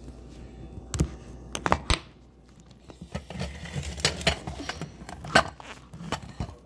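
Scattered clicks and light knocks of a plastic food container with a snap-on lid being handled and set down on a plate, a dozen or so irregular taps with the sharpest a little past five seconds in.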